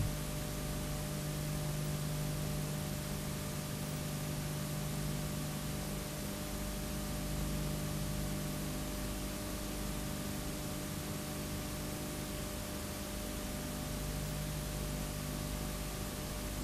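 Steady hiss with a low electrical hum. This is the background noise of an analogue video recording with no programme sound on it.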